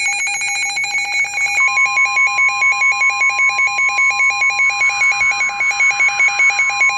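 Emergency weather alert tones: an alarm beeping rapidly back and forth between a low and a high tone. About a second and a half in, the steady NOAA Weather Radio 1050 Hz warning alarm tone joins and holds under the beeping. It signals that a warning is about to be read.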